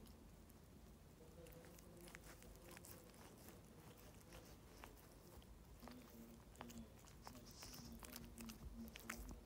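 Boston terrier licking and chewing at her own paw: faint wet licks and small nibbling clicks.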